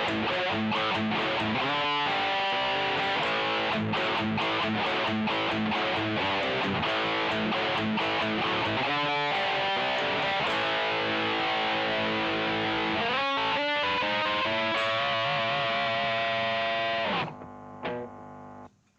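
Electric guitar with humbucker pickups played through a Digitech distortion pedal and recorded direct through a DI box: heavily distorted riffing with rhythmic chugging, then a held chord that is cut off about two seconds before the end.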